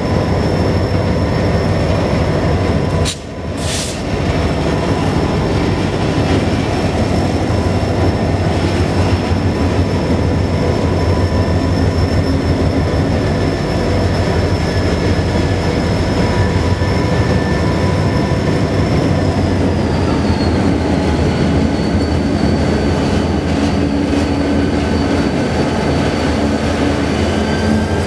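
Several EMD six-axle diesel locomotives, an SD45 among them, passing close by with a steady heavy engine rumble and a high whine that drops slightly in pitch about twenty seconds in. The sound breaks off briefly about three seconds in.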